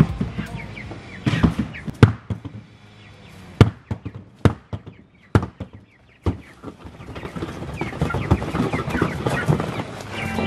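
Irregular hollow knocks and thumps of a plastic pet carrier being carried and handled, with young chickens peeping now and then.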